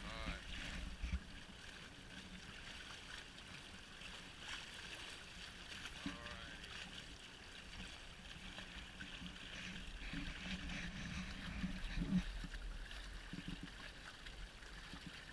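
Water gurgling and splashing faintly against a sea kayak's hull, muffled by a waterproof action-camera housing, with a low rumble swelling now and then.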